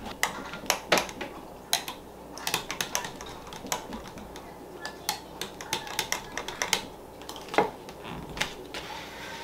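A wooden spoon stirring beaten eggs in a glass measuring jug, tapping and clicking irregularly against the glass several times a second.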